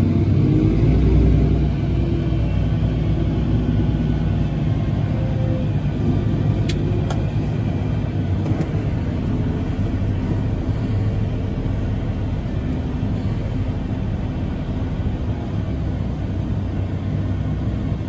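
Fendt 1050 tractor's 12.4-litre MAN turbocharged six-cylinder engine running steadily under load, heard from inside the cab as an even low hum and rumble. A few faint sharp clicks come about halfway through.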